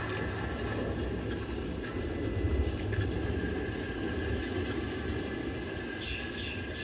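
Steady low rumble of a running vehicle, with a faint steady whine above it.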